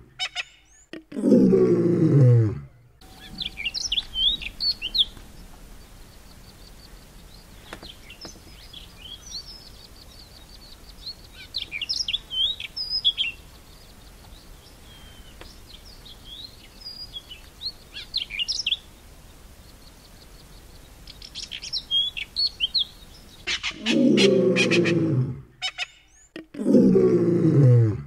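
Sabota lark singing in short, quickly varied high phrases that come every few seconds. A loud, deep sound that falls in pitch comes once about a second in and twice near the end.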